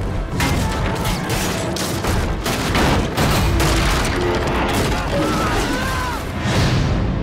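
Action-film trailer sound mix: a rapid run of crashes and booms layered over dramatic music, as the whaleship is struck and the crew thrown about.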